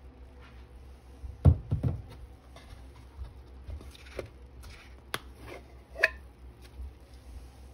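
A wet sponge squeezed in thick dish-soap foam, squishing, with two loud low thumps about a second and a half in. Near the end a metal can of powder cleanser is handled and shaken, giving a couple of sharp clicks.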